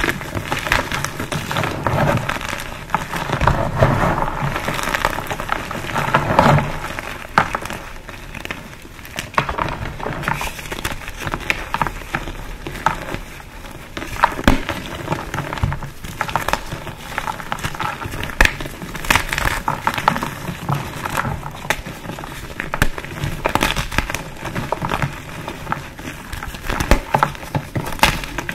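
Pasted gym chalk blocks being crushed and crumbled, a continuous crunchy crackling full of sharp little snaps, heaviest in the first several seconds.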